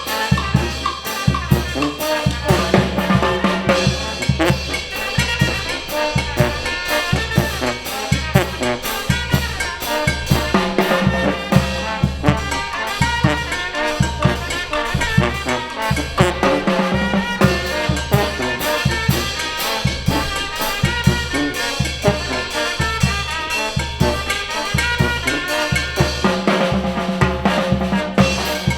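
A Costa Chica band playing a dance tune: drums keep a steady, driving beat under trumpets and trombones.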